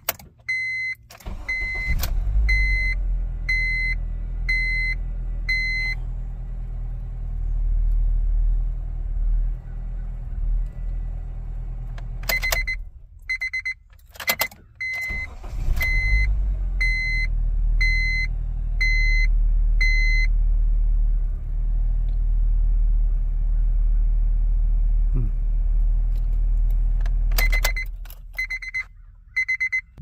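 A 2007 Honda Civic's four-cylinder engine starts and idles, shuts off briefly and is restarted, then idles again until it is switched off near the end, with clicks of the ignition key at each switch. After each start a dashboard warning chime beeps about once a second for several seconds. The engine is still acting up from a misfire on cylinder 2 (code P0302).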